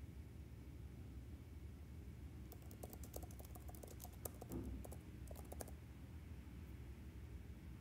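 Typing on an iPad keyboard: a quick run of keystrokes starting about two and a half seconds in and lasting about three seconds, over a faint steady low hum.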